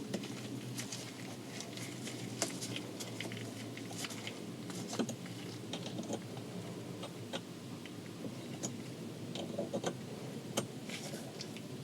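Small metal parts clicking and tapping irregularly as a hex key and a 4 mm bolt are handled and fitted into the shifter adapter.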